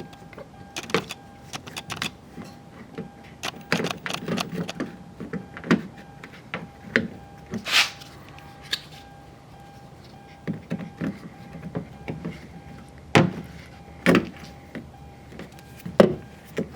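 Irregular clicks, taps and knocks of hands working the parts of a car's exterior door handle inside the door, with a longer scrape about 8 seconds in. A faint steady tone runs under it.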